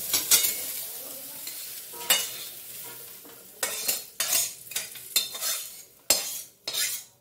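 Fried potato and cauliflower sizzling in a kadai, the hiss fading over the first few seconds. Then a metal spatula scrapes and knocks the pieces out of the tilted kadai into a steel bowl in a run of short strokes.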